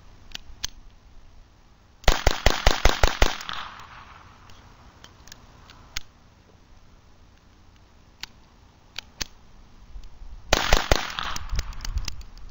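Beretta 21A .22 Long Rifle pistol fired in quick succession, about seven sharp shots in just over a second. A few light clicks follow, then a second quick string of a few shots near the end.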